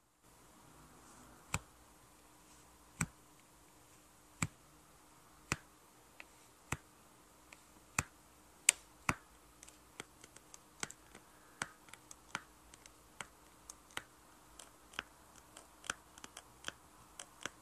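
Sharp plastic clicks of a diamond painting multi-placer pen tapping round resin drills, picking them up from the tray and pressing them onto the canvas. The clicks are spaced about a second and a half apart at first, then come faster and more irregularly in the second half.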